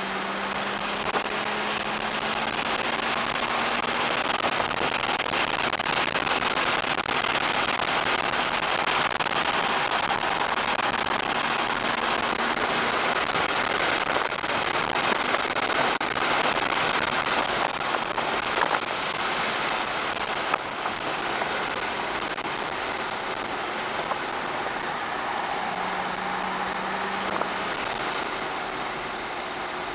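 2007 Porsche Cayman S's flat-six engine at speed on track, heard from inside the cabin under a heavy rush of wind and road noise. The noise is louder through the middle, while the engine note shows more plainly at the start and near the end.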